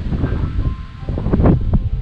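Background music with short held notes, over the low, gusting rumble of wind buffeting the microphone.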